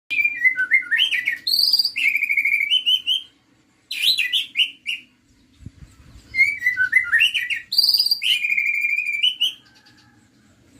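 White-rumped shama (murai batu) singing: loud whistled phrases that slide down and warble, then hold on a buzzy trill. The same phrase comes twice, with a shorter burst between them.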